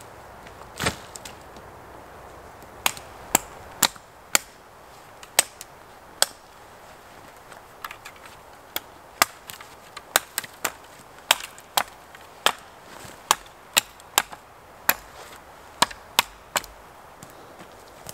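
Irregular sharp wooden chops and cracks, roughly one or two a second, from side branches being struck off a thin pole. A duller thump comes about a second in.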